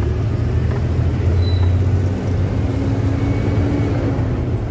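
Truck engine and road noise heard from inside the cab while driving: a steady, loud low drone.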